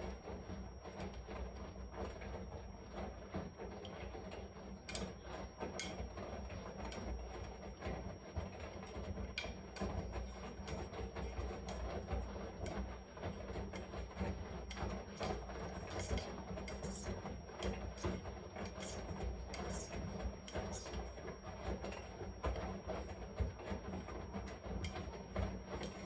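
Washing machine running: a steady mechanical churning and rumble with many small clicks and rattles through it, and a thin high steady tone above it.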